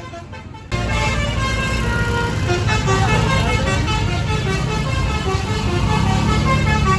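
Bus basuri horn, a multi-tone melodic horn, playing a tune in quickly changing notes over the low rumble of the bus engine. It comes in loud less than a second in, after fainter horn notes.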